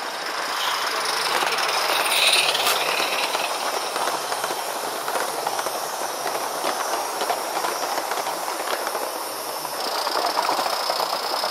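Model steam trains running close past on the track: a continuous fine rattle of small wheels over the rails, with a steady hiss, briefly louder about two seconds in.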